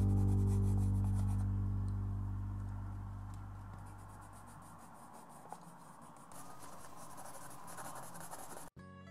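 Watercolor pencil scratching and rubbing on sketchbook paper, growing louder about two-thirds of the way through and cutting off abruptly near the end. A held low chord of background music fades out over the first few seconds.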